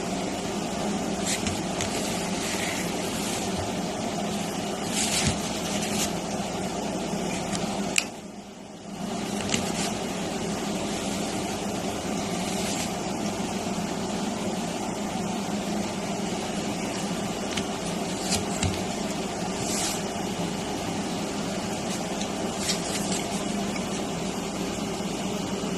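Steady machine hum, like a fan or air conditioner running, with a few faint clicks. It drops out briefly about eight seconds in.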